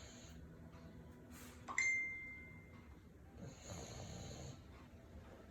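English bulldog snoring in slow, raspy breaths. About two seconds in, a single metallic ding rings out and fades over about a second.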